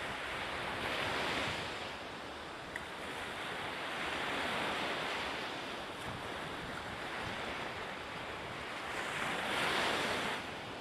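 Small ocean waves breaking and washing up a sandy beach: a steady rush of surf that swells three times, about a second in, a few seconds later and near the end.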